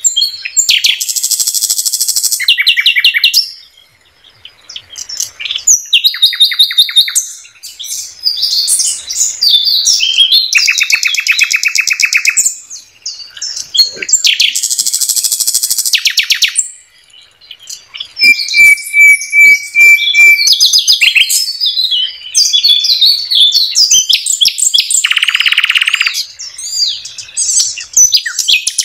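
A nightingale (sikatan londo) singing a long run of varied phrases: fast rattling trills, high twittering, a string of pure whistled notes about two-thirds of the way through, and a lower buzzy phrase near the end, with short pauses between some phrases.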